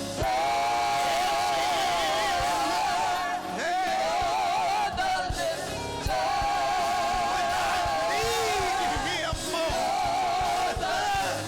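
Gospel praise singing by several voices, long notes held with a wavering vibrato over a band with a steady beat, pausing briefly between phrases.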